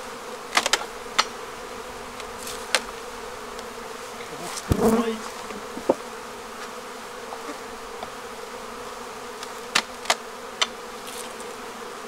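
Honeybees buzzing in a steady hum around an opened hive while robbing is going on. Sharp wooden knocks and clacks come as hive boxes are handled, the loudest a thump just under five seconds in.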